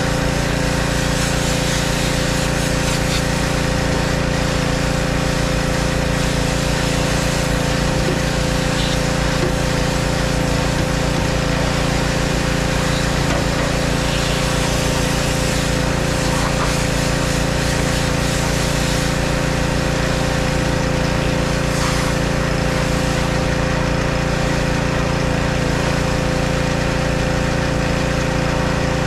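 Steady engine drone with a constant hum under the hiss of a pressure washer spraying water onto a semi-truck.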